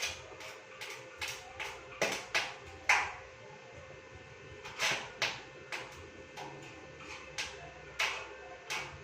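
A series of short, sharp taps at an uneven pace, about two a second, pausing for nearly two seconds in the middle, over a faint steady hum.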